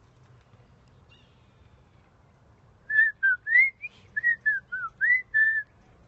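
A person whistling a short phrase of about nine clear notes, some sliding up and some down, starting about three seconds in.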